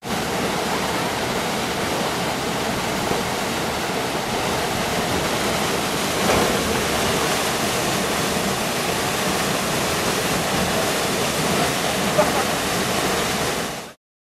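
A small river waterfall pouring over granite boulders into a pool, a steady, even rush of falling and churning water that stops abruptly near the end.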